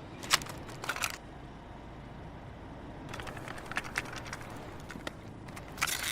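A few short, scattered clicks over a low steady background noise.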